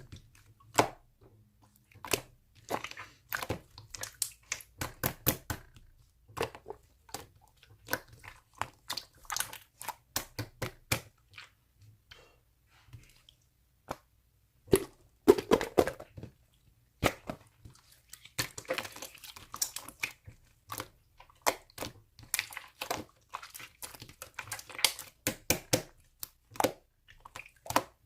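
A long run of irregular, close-up sharp clicks and crinkling noises, with short pauses between clusters.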